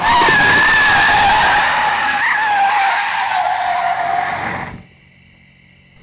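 Car tyres screeching in a long skid as the car brakes hard to a stop. One steady squeal that sags slightly in pitch and cuts off suddenly a little under five seconds in.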